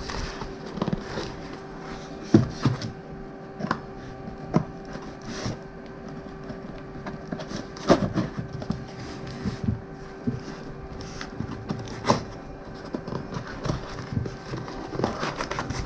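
A cardboard shipping box being handled and worked open by hand: scattered taps, knocks and scrapes, with a few sharper knocks, over a steady faint hum.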